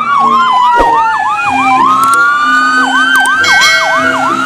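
Police car siren sounding loud, with a slow wail gliding down and then back up while a fast yelp repeats about three times a second on top of it.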